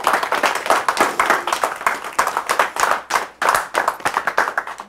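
Applause: hands clapping in a fast, irregular patter that thins out near the end.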